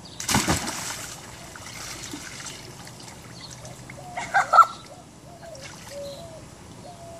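A person jumping feet-first into a galvanized metal washtub of water: a loud splash about a quarter second in, followed by water sloshing and dripping in the tub.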